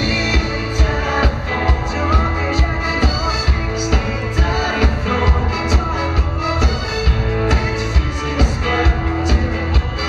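Swedish dansband playing live: drums keeping a steady beat of about two a second under electric guitars and keyboard.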